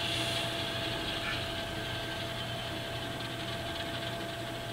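Sound decoder in an HO scale Alco C425 model locomotive playing a steady diesel engine sound through its small speaker as the train shoves cars back, easing slightly in loudness.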